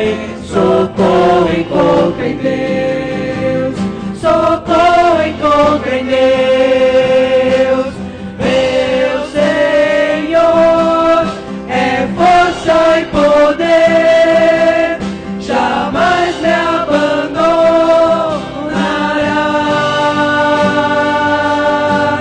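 Live gospel worship song: a group of singers in unison and harmony with instrumental accompaniment, holding long sung notes.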